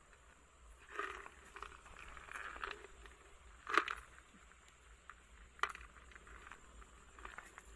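Hands scraping and rustling through loose coral gravel while picking up hermit crabs, with two sharp clicks about four and six seconds in.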